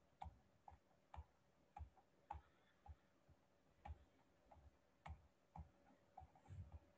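Faint, irregular clicks, about two a second, from paging back through presentation slides on a computer, one slide per click.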